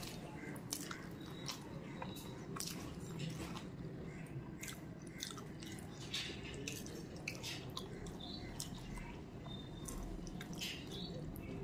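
A person chewing a mouthful of rice and curry close to the microphone, with irregular wet clicks and smacks of the mouth.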